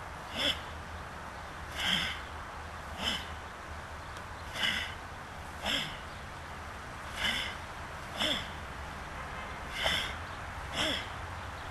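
A person's sharp, forceful exhaled breaths, about nine of them at roughly one a second, each with a short grunt: the breathing of a karateka timing breath to strikes in solo training.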